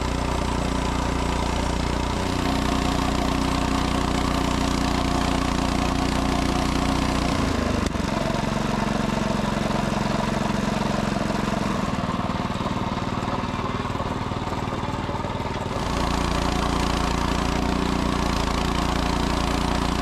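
Engine of a Frontier OS18 portable bandsaw mill running steadily during milling of a white oak log. The engine note changes about eight seconds in and goes back to the first note about sixteen seconds in.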